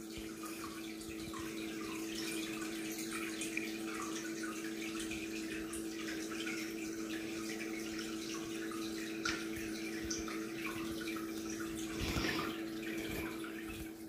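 Aquarium water trickling and splashing, with a steady low hum from the tank's running equipment.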